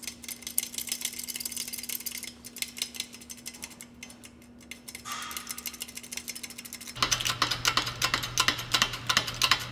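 Hydraulic shop press being worked to bring its ram down onto a pump shaft for pressing on a bearing: rapid clicking and rattling. About seven seconds in it turns louder, with a steady low hum starting underneath.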